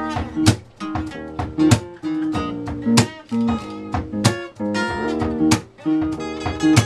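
A live band playing an instrumental passage. Acoustic guitar strums a repeating pattern of held chords over a steady beat, with a sharp percussive hit about every second and a quarter.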